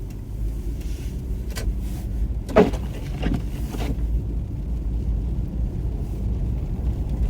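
Steady low rumble of a car's engine and tyres on a snow-covered road, heard from inside the cabin. A few short knocks come between about one and a half and four seconds in, the loudest about two and a half seconds in.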